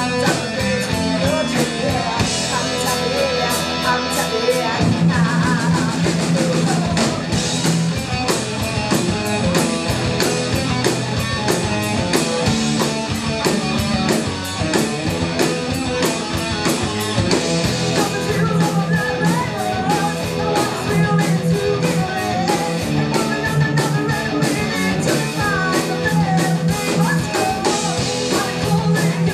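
A rock band playing live: electric guitars through Marshall amps, bass guitar, a Sonor drum kit keeping a steady beat, and a woman singing. The band's sound grows fuller about five seconds in.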